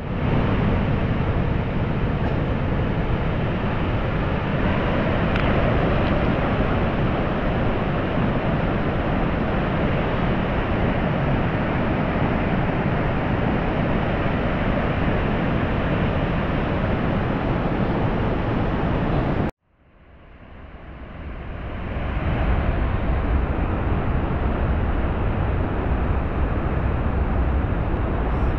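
Waterfall rushing: a loud, steady roar of falling water. About twenty seconds in it cuts off abruptly, and a similar steady rushing noise, heavier in the low end, fades back in over a couple of seconds.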